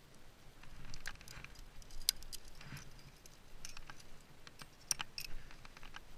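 Metal climbing gear (carabiners and quickdraws) clinking and clicking as a climber moves, with the sharpest clinks about two seconds and five seconds in, and light scuffs of hands on rock.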